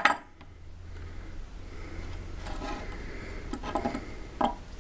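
Bent steel adjustable wrench handled on a wooden tabletop, with a sharp knock of metal on wood near the end, over a low steady hum.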